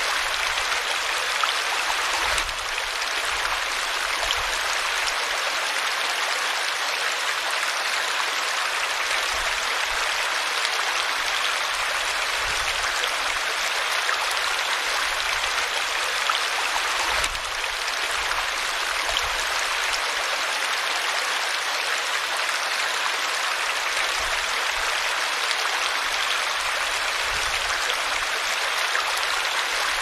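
Small woodland stream cascade pouring over rocks into a pool: a steady rush and splash of falling water.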